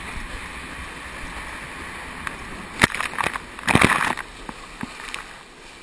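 Motorboat underway with water rushing and sloshing past the hull. A sharp knock comes just before three seconds in, and a short loud burst of noise about a second later.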